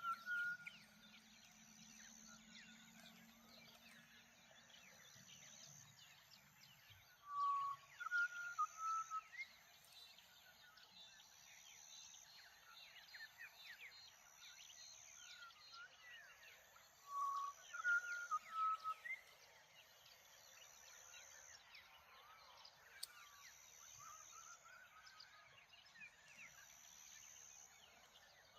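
Dawn bird chorus: many faint chirps and calls, with one nearer bird giving a short phrase of several clear notes twice, about ten seconds apart.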